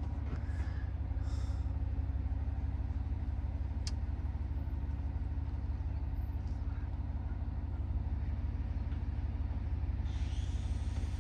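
A motor vehicle's engine running steadily, a low even hum. There is a single click about four seconds in, and a hiss joins near the end.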